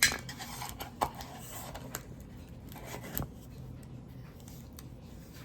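A few light knocks and taps from cardboard gift boxes being handled, the loudest right at the start as a lid goes on, with fainter ticks and another knock about a second in and a little after three seconds.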